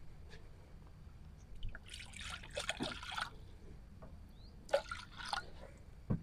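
Water trickling and splashing faintly in a few short, irregular bursts, as when water is poured or handled in a container.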